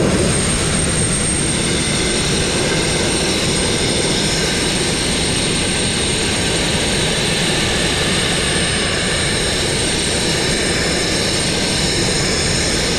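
Abrasive blast nozzle spraying fine crushed glass against a steel narrowboat hull: a loud, steady rush of compressed air and grit that holds unbroken throughout.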